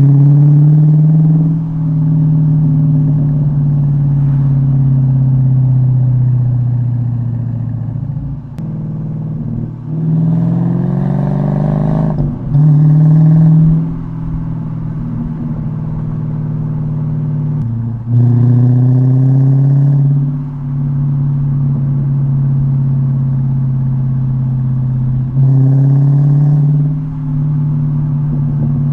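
Dodge Challenger R/T's 5.7-litre Hemi V8 through a loud aftermarket exhaust (H-pipe, 3-inch pipes, Dynomax Race Bullet mufflers, active valves deleted), burbling on deceleration. The engine note drones steadily, then climbs and drops away several times, with sudden jumps in pitch three times.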